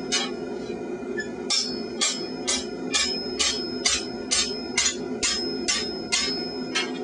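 Hand hammer blows on hot mild steel against an anvil, a steady run of about two strikes a second after a brief pause near the start, several with a thin high ring. The smith is shaping a flattened steel angle into rippled curves.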